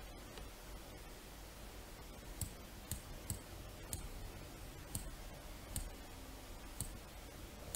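Computer mouse buttons clicking: about seven faint single clicks at uneven intervals, starting a couple of seconds in.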